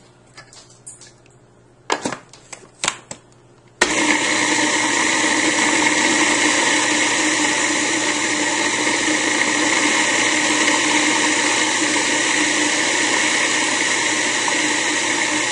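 A few clicks and knocks as the lid of a Cuisinart Pro Classic food processor goes on, then about four seconds in its motor starts suddenly and runs steadily, the blade chopping raw cauliflower and parsnip.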